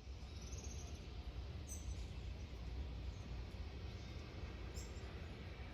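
Gusty wind buffeting the microphone as a fluctuating low rumble, with a few faint high bird chirps about two and five seconds in.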